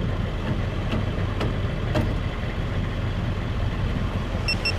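A vehicle engine idling steadily with a low, even hum. Near the end come three quick, high electronic beeps.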